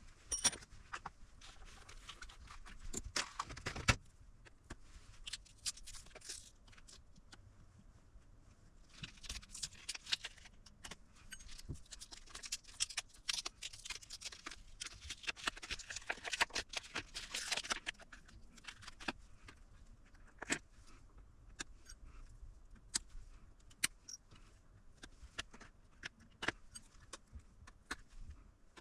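Scattered light clicks, taps and rustling from hands handling the parts and tools of an opened portable power station's battery pack.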